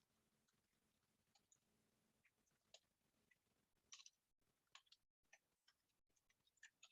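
Near silence with faint, scattered keyboard clicks from typing.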